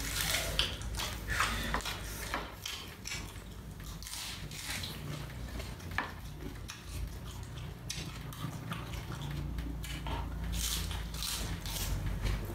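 Close-up chewing and mouth sounds of a person eating lettuce-wrapped food, with irregular light clicks of chopsticks against dishes, over a low steady hum.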